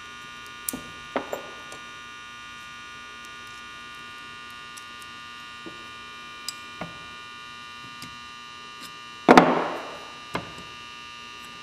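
Small metal clicks and a louder clatter about nine seconds in as the choke door and lever of a Marvel Schebler carburetor are fitted with needle-nose pliers. A steady electrical mains hum runs throughout.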